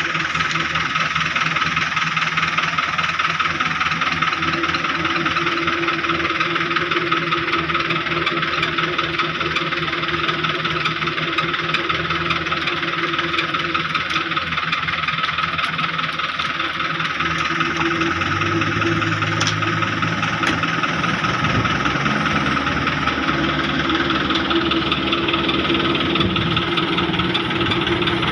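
Diesel engines of a CAT mini excavator and a concrete mixer truck running steadily together as the excavator loads material, with the low engine note shifting several times in the second half.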